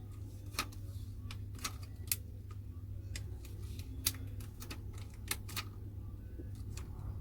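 Irregular sharp clicks and ticks of small tools working against a Samsung Galaxy J2 Prime's frame and screen as it is being opened, a dozen or so at uneven spacing, over a steady low hum.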